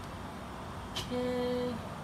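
A single click about a second in, then a short, steady hummed 'hmm' from a man's voice.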